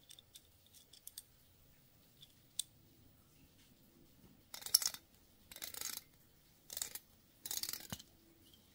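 A few light metal clicks as the small parts of a brass automatic center punch are handled, then four short rasping bursts, each about half a second, as its threaded brass cap is turned off the knurled body, metal threads grating.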